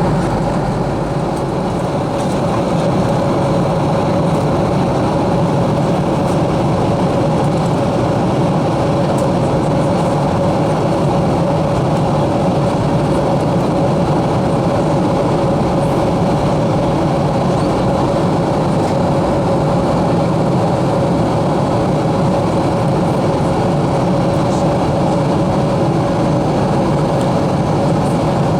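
Steady in-flight cabin noise of a Boeing 737-300: a constant roar of airflow and its CFM56-3 turbofan engines, with a steady mid-pitched hum on top.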